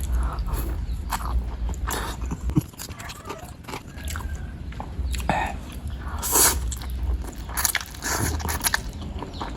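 Close-miked mukbang eating of bakso meatballs and noodles: irregular wet chewing, biting and mouth smacks.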